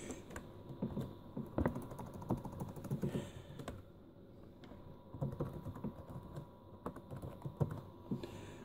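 Typing on a Toshiba Satellite L300D laptop's keyboard: irregular keystroke clicks in short runs, with a pause of about a second partway through.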